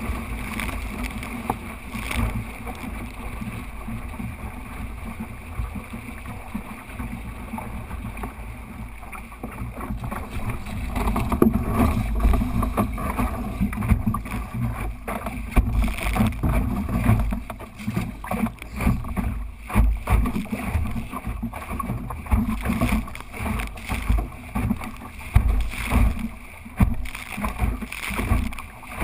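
Wind buffeting the microphone of a camera mounted on a small sailing dinghy, with water rushing and slapping along the hull as the boat moves through chop. The rumble gets louder and gustier about a third of the way in.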